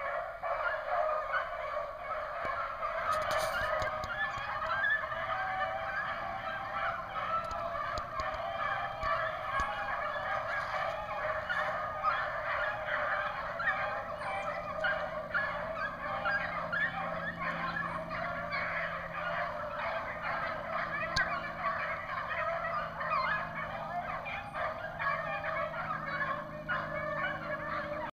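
A pack of beagles baying on a rabbit's trail, many hound voices overlapping without a break.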